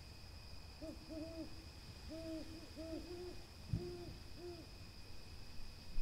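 Burrowing owl giving a run of short, soft hoots: about nine arched notes in quick pairs and threes over a few seconds. A steady, high insect drone runs underneath, and a brief low thump comes near the middle.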